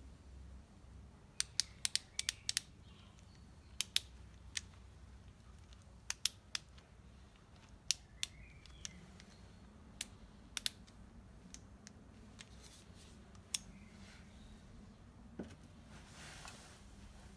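Sharp, irregular metallic clicks of a 1/4-inch torque wrench and its sockets being handled, with a short rustle near the end.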